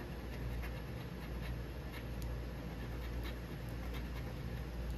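Scratch-off lottery ticket being scratched by hand: repeated short rasping strokes as the latex coating is rubbed off the play area.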